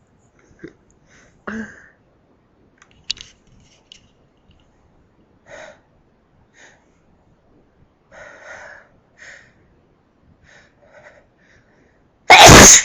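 A person's short, faint breaths and sniffs between sneezes, then a loud sneeze near the end.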